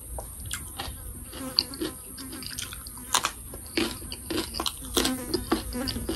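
A person chewing and crunching raw cucumber with chilli paste, with many short irregular mouth clicks.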